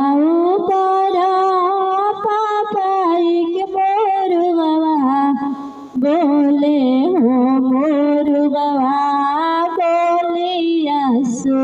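A woman singing a Hindi daughter's wedding song (beti vivah geet) solo into a handheld microphone, in long held, wavering notes. She breaks off for a breath about six seconds in and again near the end.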